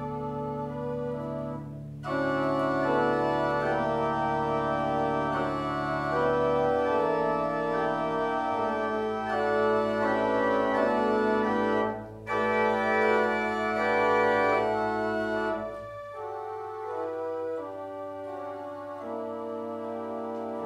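Church pipe organ playing slow, sustained chords over low pedal notes. A full, louder passage starts about two seconds in, with a brief break between phrases near the middle. It thins to a softer registration about three-quarters of the way through.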